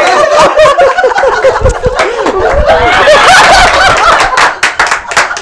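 Men laughing hard together in loud, rapid, broken bursts of laughter.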